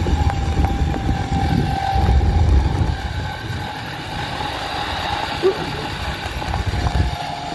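Zipline trolley wheels running along the steel cable with a steady high whine, over a low, gusty rumble of wind on the microphone.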